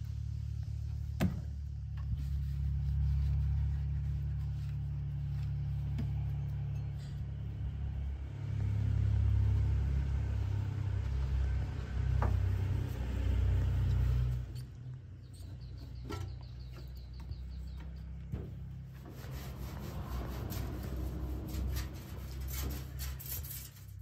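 Diesel engine idling: a low, steady rumble that drops in level about two-thirds of the way through, with a few sharp clicks and knocks over it.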